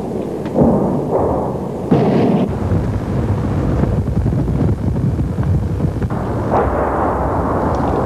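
Artillery shelling: a continuous heavy rumble with sudden booms about half a second, two seconds and six and a half seconds in.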